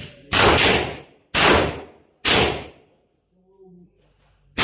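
Glock 19 9 mm pistol being fired in slow succession, about one shot a second, each sharp report trailing off in a short echo.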